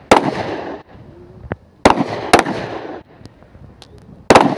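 Pistol shots on a firing range: four sharp reports at uneven intervals, two of them in quick succession about two seconds in, each trailing off in a rolling echo.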